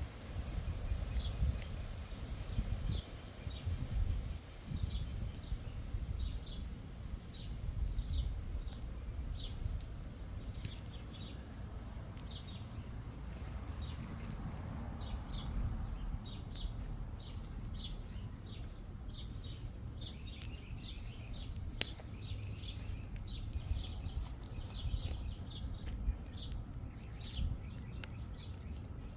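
A bird chirping over and over, short high chirps about one or two a second, over a low rumble, with a few faint sharp pops.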